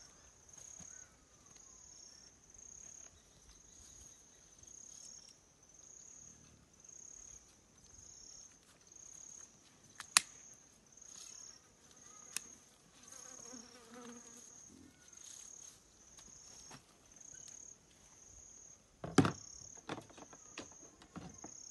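An insect calling: a high, even chirp repeated about once a second. A sharp click comes about ten seconds in, as the ear-tag applicator snaps a tag into the pig's ear. A louder knock and clatter follow near the end.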